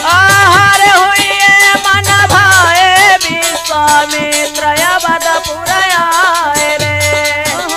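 Indian folk Holi music: a wavering, ornamented melody line over dholak drum strokes and steady jingling rattle-type percussion.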